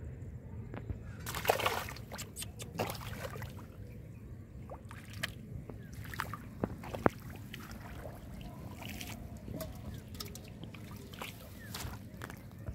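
Shallow muddy water sloshing and splashing as hands grope through it for fish, with scattered small splashes and drips; the loudest splash comes about one and a half seconds in.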